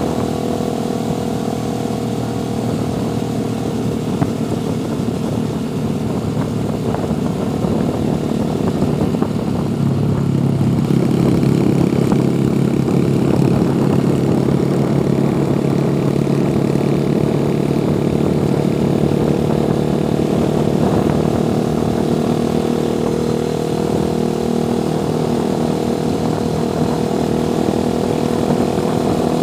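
Motorcycle engine running steadily under way. About a third of the way in, its note steps up and grows louder, then holds.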